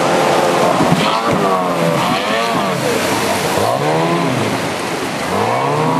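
Racing power dinghy's outboard engine running hard through rapids, its revs rising and falling several times. It is heard over the steady rush of white water.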